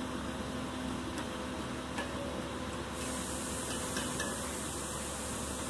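A metal slotted spoon scraping and clicking faintly against an aluminium pot while cooked chicken pieces are lifted out of broth, over a steady kitchen hiss that grows a little brighter about three seconds in.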